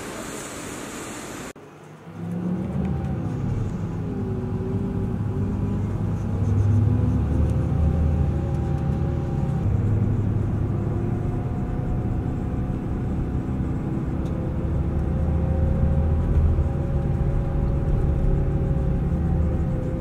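Bus engine and drivetrain heard from inside the moving bus: a low, steady drone with a faint whine that drifts in pitch as it drives through city streets. In the first second and a half there is only a brief steady hiss, before a sudden cut.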